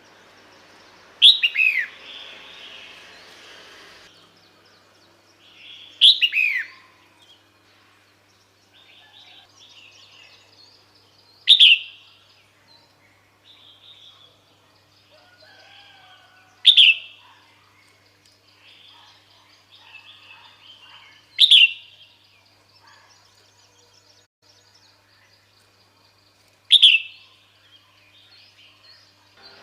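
Female red-whiskered bulbul calling, a call used to draw males in: a short, sharp note sliding steeply down in pitch, repeated six times about every five seconds, with faint chirps between.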